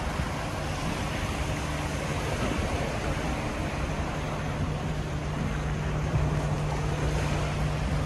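Gusty wind buffeting the microphone together with choppy swimming-pool water sloshing and splashing over the deck edge, a steady rushing noise with a low hum underneath.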